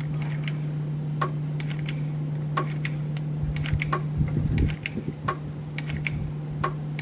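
Hot glue gun in use, its trigger clicking sharply about every second and a half as glue is pushed out, with a few low knocks near the middle, over a steady low hum.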